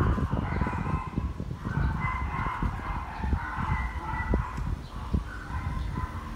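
A rooster crowing repeatedly, over the low thuds of footsteps and camera handling while walking.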